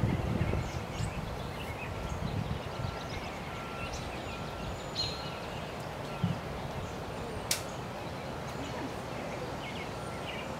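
Outdoor ambience of birds chirping over a steady low background noise, with a faint short tone repeating evenly in the first few seconds and again near the end. One sharp click about two-thirds of the way through.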